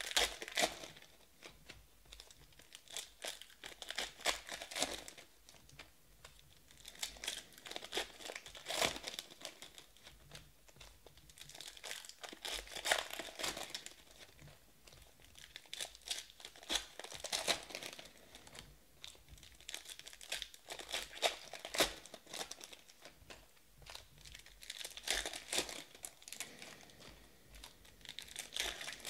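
Foil trading-card pack wrappers being torn open and crinkled in the hands, in bursts of crackling a few seconds long with short pauses between, as one pack after another is opened.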